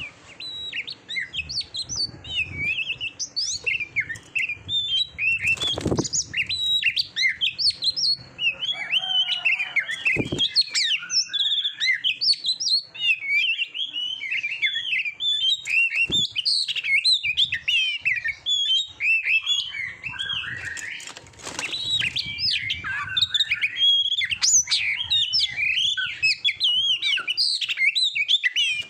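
Oriental magpie-robin singing a fast, varied run of high whistled notes with hardly a pause. A few short low thumps come through along the way.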